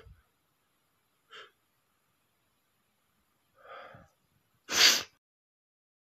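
A man sneezing: a few short breathy build-up sounds, then one loud, sharp sneeze about five seconds in.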